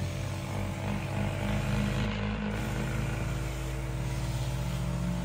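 Motorized garden sprayer running steadily: its pump motor hums with a hiss of fine mist from the wand nozzle as it sprays vegetable plants.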